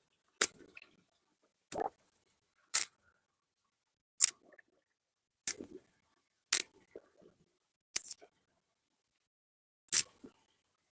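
A series of sharp clicks, about eight, spaced unevenly one to two seconds apart.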